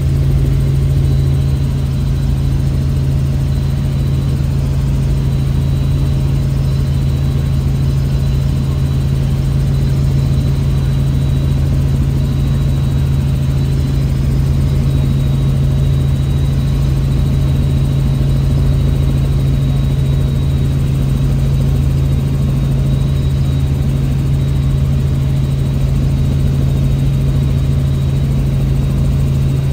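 Helicopter in flight: a steady, loud drone of engine and rotors, unchanging throughout, with a faint high whine above it.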